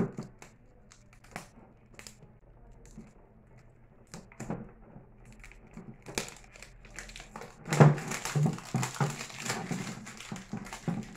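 Plastic-and-cardboard toy packaging being handled and opened by hand: a few small scattered clicks and taps at first, then from about six seconds in, denser crinkling and tearing of the packaging.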